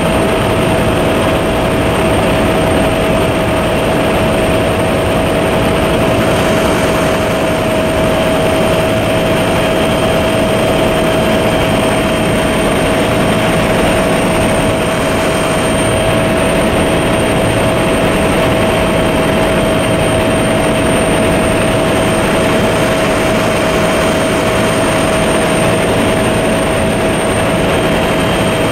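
Helicopter in flight: loud, steady engine and rotor noise with a constant whine running through it.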